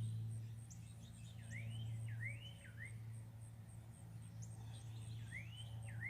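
A songbird sings a short phrase of three arching whistles, twice, with other birds chirping briefly higher up. Under it runs a steady low hum.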